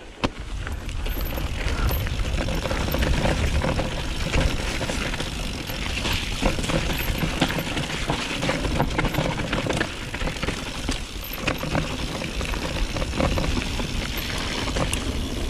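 Mountain bike riding over a rough trail: a steady clatter of knocks and rattles over a heavy rumble.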